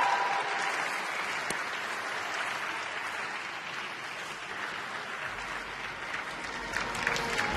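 Arena crowd applauding, the clapping slowly dying away.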